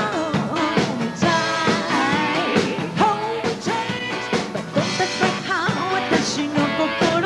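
Live band performance of a city-pop song: a woman sings the lead into a microphone over a full band with drum kit, the drums hitting steadily throughout.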